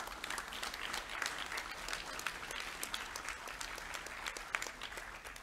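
Audience of many people applauding in a large hall, a dense clapping that tails off near the end.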